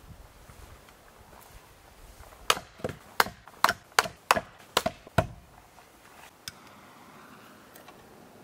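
Firewood being chopped: about eight sharp strikes in quick succession over less than three seconds, starting a couple of seconds in, followed by one lighter knock.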